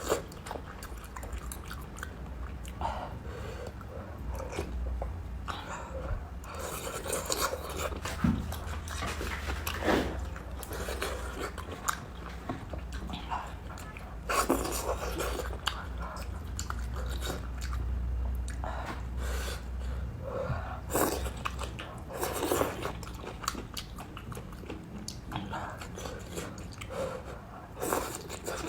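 Close-miked eating of crossing-bridge rice noodles in soup: chewing and biting, with irregular louder noisy bursts every few seconds over a steady low hum.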